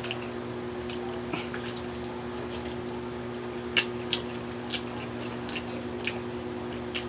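Close-up mouth sounds of eating braised pork leg adobo: wet squishy chewing and smacking, with short sharp clicks every second or so, the loudest a little over halfway through. A steady low hum runs underneath.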